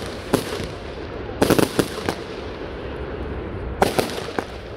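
200-gram consumer fireworks going off: a single bang just after the start, then a quick cluster of sharp bangs and crackles about a second and a half in, and another cluster near the end.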